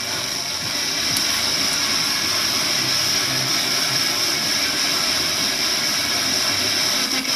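FM tuner static from a Marantz ST-50 tuned to 94.9 MHz: steady loud hiss from a weak long-distance signal, with the station's programme only faintly showing beneath the noise.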